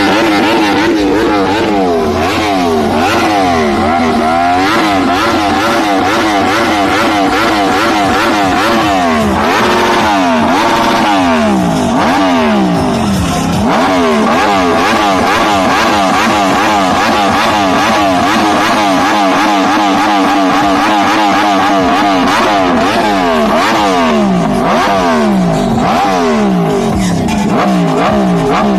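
Yamaha and BMW motorcycles with loud exhausts revving together. The throttles are blipped again and again, so the engine pitch keeps rising and falling, with a stretch of steadier held revs around the middle.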